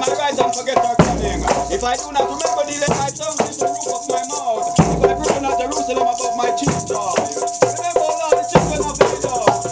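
Rastafarian congregation chanting together over hand drums and shakers, the voices overlapping with many sharp drum strokes and rattling throughout.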